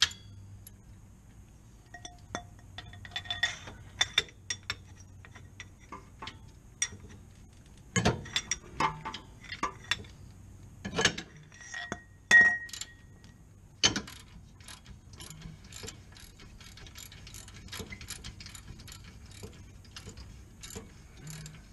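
Hand tools on a rear brake caliper bolt: metal clinks and several sharp clanks as a breaker bar and socket are worked on the tight bolt, then a steady run of socket-ratchet clicks, about three a second, over the last several seconds as the bolt is turned out.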